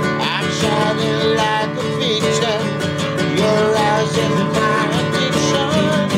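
Acoustic guitar strummed steadily while a man sings a wavering melody line over it.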